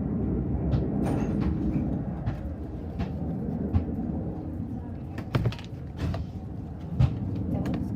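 Slime being squeezed and stretched by hand, giving short sticky clicks and pops from about five seconds in, over a steady low background hum.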